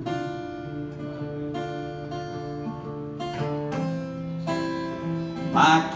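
Guitar strummed in slow chords that ring on, a new strum every second or so, between sung lines; a man's singing voice comes back in near the end.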